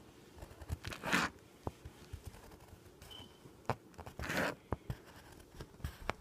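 Colored pencil scratching across lined notebook paper: two short scratchy strokes, about a second in and around four seconds, with a few light taps of the pencil.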